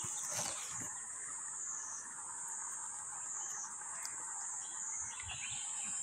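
A steady, high-pitched insect chorus, its pitch dipping slightly a few times.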